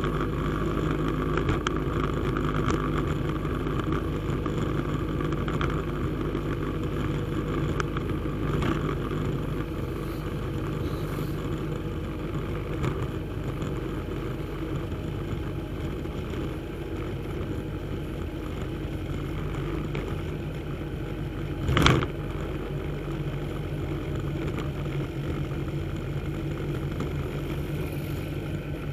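Engine of a vehicle driving steadily along a street at moderate speed, with road and wind noise, and one brief loud thump about three-quarters of the way through.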